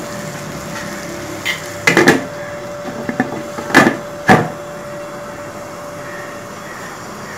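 Glass pot lid with a metal rim set down onto a wok of chana dal to cover it for dum cooking. It gives a few sharp knocks and clinks about two seconds in and again around four seconds, over a steady faint hum.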